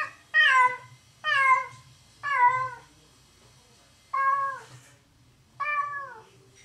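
Domestic cat meowing loudly and repeatedly: five long calls about a second apart, with a longer pause before the last two, each dropping in pitch at the end. Called out while left alone, this is the cat's lonely crying from separation anxiety.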